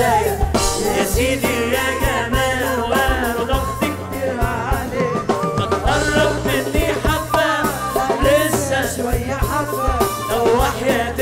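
Egyptian-style dance music: a darbuka and a riq beating a quick rhythm under a wavering, ornamented melody.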